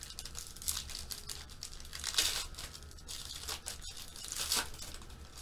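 Foil trading-card pack being torn open, its wrapper crinkling and rustling in irregular bursts, loudest about two seconds in.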